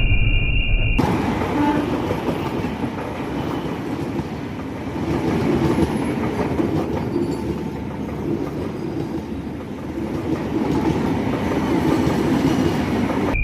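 A passenger train hauled by a CC203 diesel-electric locomotive passing close by, a steady rumble of engine and wheels with clacking over the rail joints, rising and falling as the cars go by. It cuts in abruptly about a second in, after a steady high-pitched tone.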